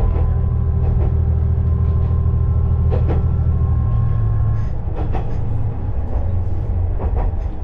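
KiHa 20-series diesel railcar running along the line, heard from inside the car: a steady low engine drone with single clicks from the rail joints, a few seconds apart. A little after halfway the drone drops and changes.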